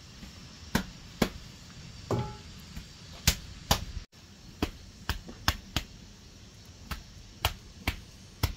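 Bare hands slapping and pressing wet mud plaster onto an earthen wall: about a dozen sharp slaps at an uneven pace, with a brief higher-pitched sound about two seconds in.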